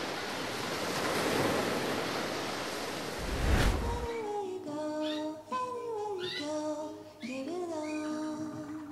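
Sea surf washing on a shore, with a louder swell about three and a half seconds in. It is followed by background music with a sung melody.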